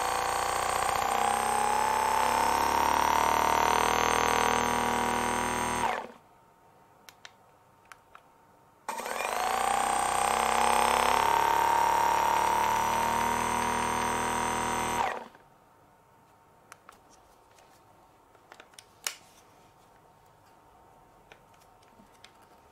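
Theragun PRO percussive massage gun motor running, its pitch gliding upward as the speed is stepped up, at 1900 and then 2200 percussions per minute. It stops about six seconds in, starts again about three seconds later and winds up to a higher pitch, then stops about fifteen seconds in, leaving only a few light clicks as the gun is handled.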